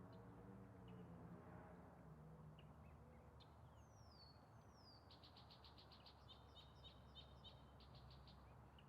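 Faint songbird calls: two short descending whistles, then a fast run of repeated chirping notes lasting a few seconds. A faint low drone fades out during the first couple of seconds.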